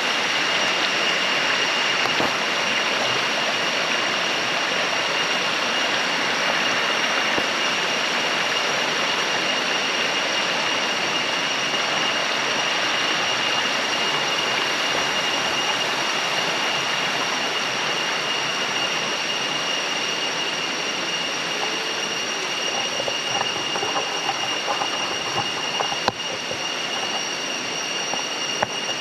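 Waterfall water rushing and splashing in a steady, even roar, with a thin steady high tone over it.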